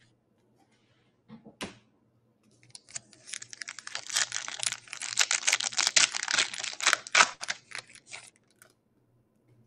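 Foil wrapper of a football trading card pack being torn open and crinkled by hand. After a short rustle about a second and a half in, a dense crackling runs for several seconds from about three seconds in, then thins out.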